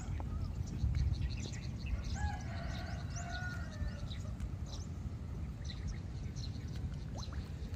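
Small birds chirping over a low, steady rumble.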